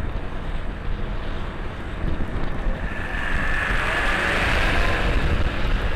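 Wind rushing over the microphone of a moving motorcycle, over the low rumble of the ride. The rush swells louder from about three seconds in.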